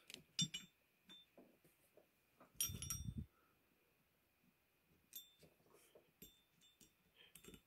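Light metallic clicks and clinks as an RMR red-dot optic is set on a Glock slide and its mounting screws are placed and started with a screwdriver. About three seconds in there is one louder clatter with a brief ringing clink.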